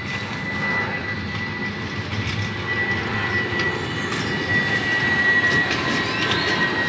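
Airbus A319 airliner climbing out after takeoff: a steady jet rumble that grows slightly louder, with a thin steady high whine over it.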